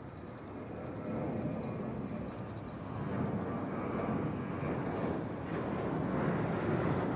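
Airplane engine noise at an airport, a steady noise growing gradually louder.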